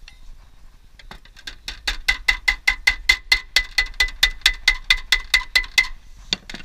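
Hammer blows on pre-painted aluminium roofing sheet, a quick even run of about five a second with a metallic ring. The run builds up about a second in, breaks off shortly before the end, and two last blows follow.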